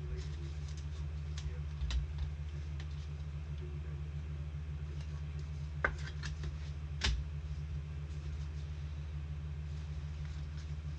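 Trading cards being handled: light clicks and taps of cards and card sleeves, a few sharper ones about 2, 6 and 7 seconds in, over a steady low hum.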